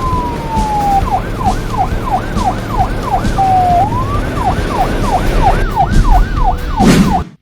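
Ambulance siren alternating between a slow falling wail and a fast yelp of about two to three rising-and-falling sweeps a second, over a low rumble. It cuts off abruptly near the end.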